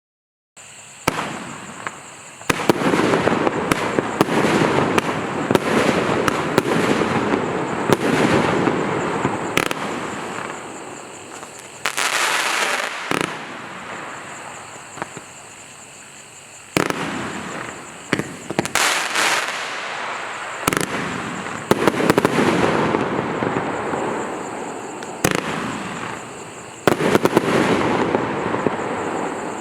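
A 30-shot panoramic forward-firing fireworks cake (FHW5212) going off: sharp reports in quick, irregular succession over a continuous rushing noise. It comes in surges, with a quieter lull about halfway through before it picks up again and stops abruptly at the end.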